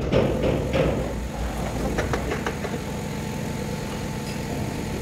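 Steady machine hum, like a running engine, with a few light knocks near the start and about two seconds in.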